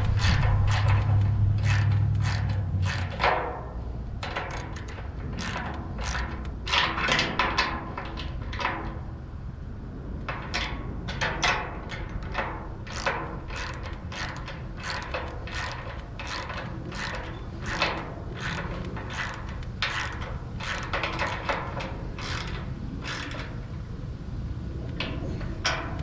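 Hand socket ratchet tightening 1/2-inch bolts, clicking in short irregular bursts as each stroke is worked back and forth. A loud low hum sits under the clicks for the first three seconds or so.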